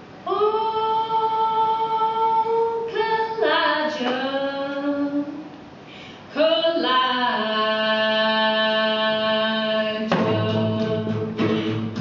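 Unaccompanied singing: two long phrases of held notes with a short break between them. About ten seconds in, the band comes in with a steady drum beat and bass under the voice.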